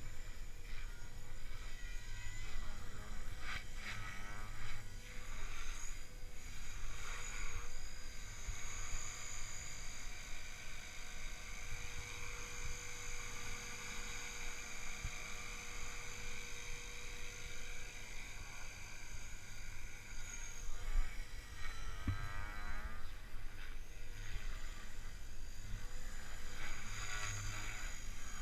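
Gaui X3 electric RC helicopter in flight: a steady high motor-and-rotor whine whose pitch wavers and bends as it manoeuvres, over a low rumble.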